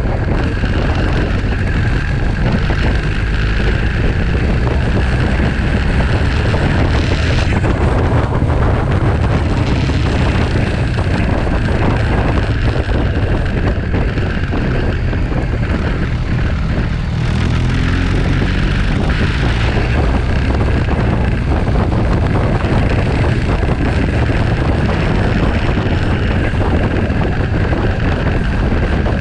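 Wind buffeting the microphone of a camera on a moving motorcycle, over the steady running of the motorcycle's engine.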